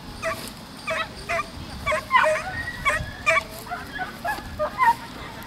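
Dog barking in a fast run of short, high yips, about two or three a second.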